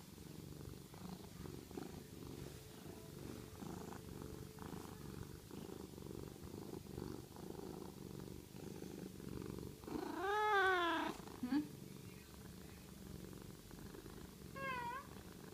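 A pet cat purring steadily and close up. About ten seconds in it gives one loud, wavering meow, and near the end a shorter, fainter one.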